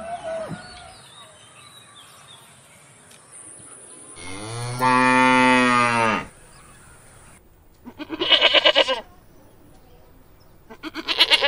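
A cow moos once, a long, steady call of about two seconds. Then a sheep bleats twice in a wavering voice, about three seconds apart.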